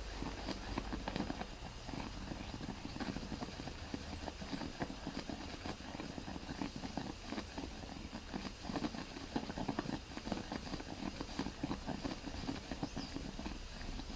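Oxalic acid gurgling and popping as it boils in a heated copper-tube vaporizer: a dense, irregular patter of small pops that goes on steadily. It is the sign that all the water is gone and the acid is fully sublimating into vapor.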